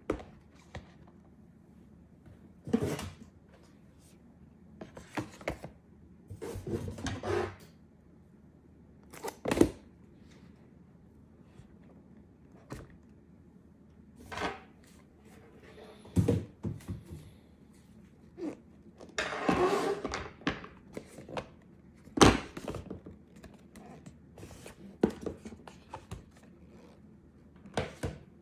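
Cardboard product boxes being handled on a table: a series of separate thunks as boxes are picked up and set down, with two longer stretches of cardboard rustling, about seven seconds in and about twenty seconds in.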